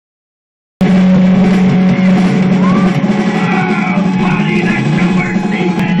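Rock music with drum kit and guitar played by a puppet bird band, heard through a TV's speaker. It cuts in abruptly about a second in.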